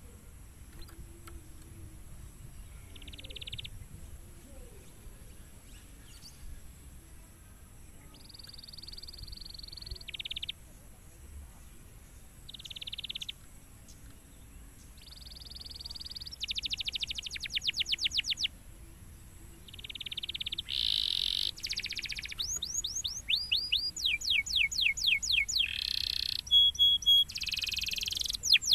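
Domestic canary singing: short, separate high phrases at first, then from about halfway a louder, denser run of fast repeated sweeping trills, with a brief held note near the end.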